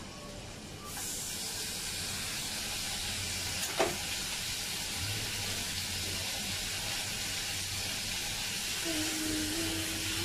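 Marinated lamb pieces sizzling in hot oil in a non-stick frying pan. The sizzle starts abruptly about a second in as the meat goes into the pan and then holds steady. There is one sharp click a few seconds in.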